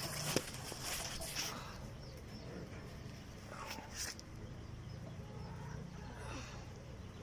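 Domestic chickens clucking faintly, with a few short rustling or scraping sounds in the first second or so.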